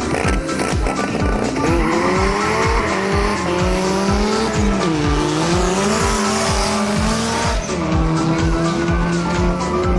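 Two drag-race cars launching and accelerating hard down a quarter-mile strip. Their engine notes rise, dip at a gear change about five seconds in, climb again and fall away near the end, with tyre and exhaust hiss during the run. Background music with a steady beat plays under it all.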